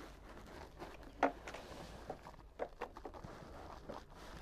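Faint scattered knocks and rustling, with one sharper knock about a second in.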